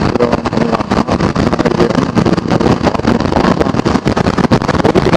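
KTM Duke 390 motorcycle running at road speed, its engine heard under heavy, gusty wind noise on the helmet camera's microphone.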